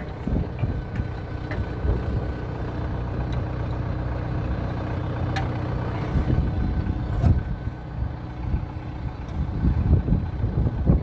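Tractor engine idling steadily, with a few sharp clicks over it.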